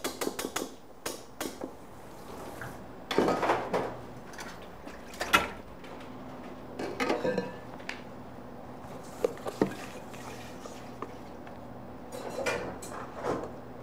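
Kitchen bowls and utensils being handled, clinking and clattering in a handful of separate knocks, with a quick run of taps right at the start.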